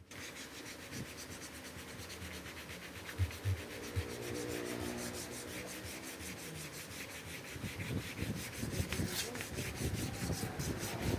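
Handling noise from a phone: fingers rub and scrape over its microphone while it is moved about, with a few dull thumps about three to four seconds in.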